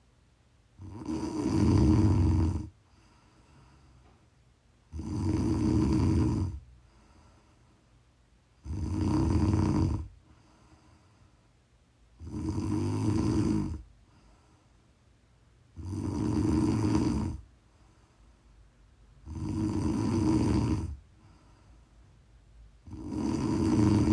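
A sleeping person snoring in a slow, even rhythm: seven loud snores, each about a second and a half long, coming roughly every four seconds with quiet between them, the last cut off near the end.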